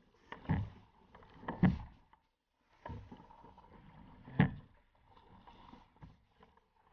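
Water splashing around a sit-on-top kayak paddled through wind-driven chop: waves slap the hull and the paddle blades dig in, in irregular splashes. The loudest hits come about half a second in, just before two seconds, and about four and a half seconds in.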